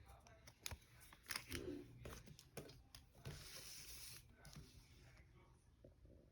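Faint handling noises: scattered light clicks and taps, with a soft rustle lasting about a second a little past the middle.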